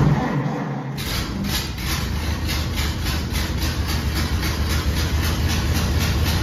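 1928 Ford Model A's 201 cubic inch flathead four-cylinder engine starting on the starter, catching about a second in and then running with an even, rhythmic beat. It is running with the ignition fully retarded, which the owner judges too much retard.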